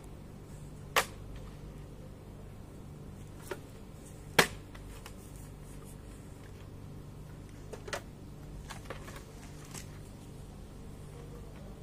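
Metal-cased computer DVD drives being picked up and stacked one on another, giving a few sharp knocks as the casings meet. The loudest knocks come about a second in and about four and a half seconds in, with fainter ones later.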